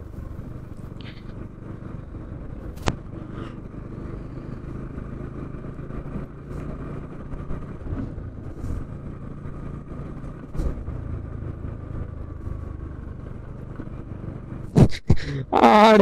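Bajaj NS 160 single-cylinder motorcycle engine running at a low, steady cruise on a dirt road, with occasional knocks from bumps. Near the end come two loud knocks, then a voice.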